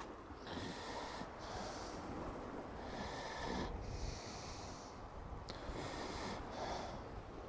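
A person breathing close to the microphone, about six breaths in a row, over a low rumble of wind on the microphone.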